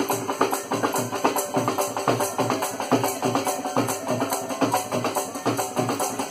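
Been (folk bagpipe) playing over a steady, fast drumbeat; the drum strokes are the loudest part and come several times a second.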